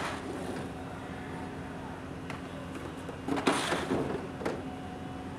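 Plastic fish crates being handled on a concrete quayside, with a louder scrape and clatter about three and a half seconds in, over a steady low hum.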